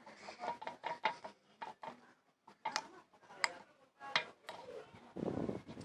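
Small spoon clicking and scraping against a bowl while mixing slime made of liquid soap and white glue: a series of sharp, irregular clicks, with a short rustle about five seconds in.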